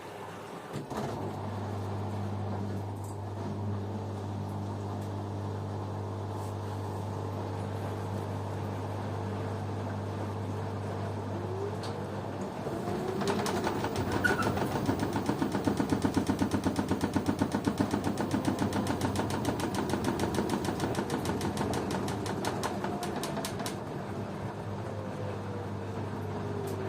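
LG washing machine running: a steady low hum, then the drum motor's whine rises about halfway through, with a fast, even beating as the drum turns, and falls away again near the end.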